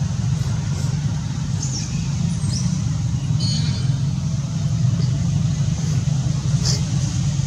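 A steady low rumble, with a few short, high chirps over it, one of them about halfway through.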